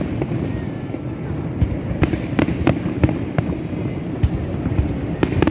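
Fireworks display going off: a string of sharp bangs and crackles at irregular intervals, about ten in a few seconds, over a continuous low rumble.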